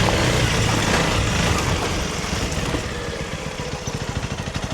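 Honda CRF300 Rally's single-cylinder engine running on a trail, easing off and getting quieter, settling near the end into an even, slow putter as the bike rolls off the throttle.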